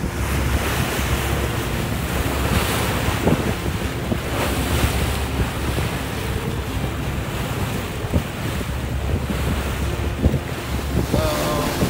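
Wind buffeting the microphone over the wash of sea water against the hull of a sportfishing boat, with a steady low rumble.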